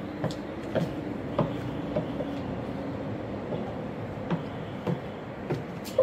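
High-heel footsteps: the 8-inch stainless steel stiletto heels of platform shoes click sharply on the ground at an uneven walking pace, roughly one step every half second, over a steady background noise.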